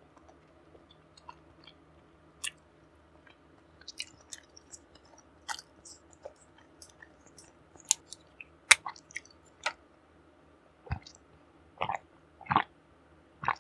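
Close-miked eating: a scatter of sharp, crisp crackles of biting and chewing, then a few fuller, wetter chews near the end.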